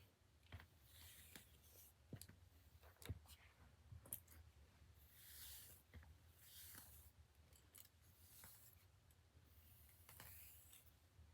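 Near silence with faint clicks and soft swishing rustles of hair being worked with styling tools during straightening.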